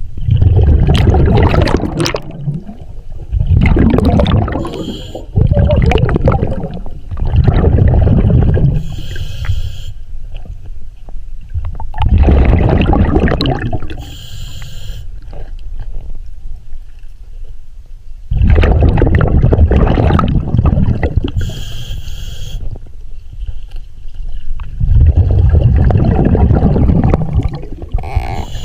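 Scuba diver breathing through a regulator underwater: long, loud bubbling exhalations rumbling every few seconds, broken by short hissing inhalations through the regulator.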